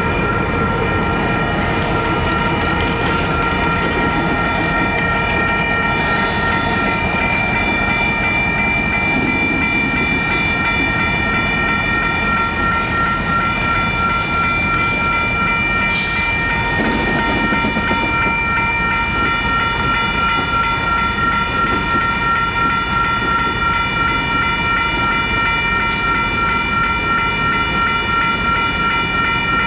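Union Pacific train rolling on the rails, a steady low rumble and clatter with several high steady ringing tones over it. A sharp click about halfway through.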